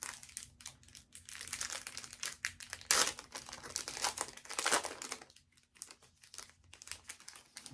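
Foil trading-card pack wrapper crinkling as it is handled and crumpled, with sharper crackles about three seconds in and again near five seconds, then fading to a few light rustles.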